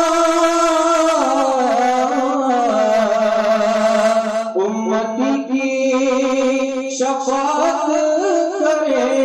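Naat music: a melodic voice holding long, gliding notes, with a short break and a new phrase about halfway through.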